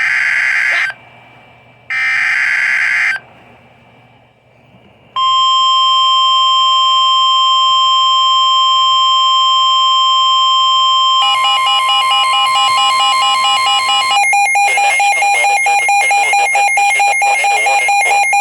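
NOAA Weather Radio emergency alert interrupting a broadcast: two short screeching SAME data bursts, then after a pause the steady 1050 Hz warning alarm tone. About eleven seconds in a second, harsher alarm tone joins it, and from about fourteen seconds it turns into rapid pulsing beeps.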